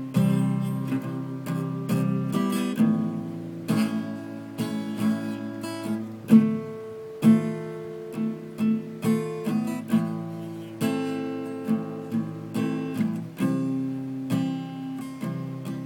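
Acoustic guitar playing strummed chords in a steady rhythm, with some louder accented strums.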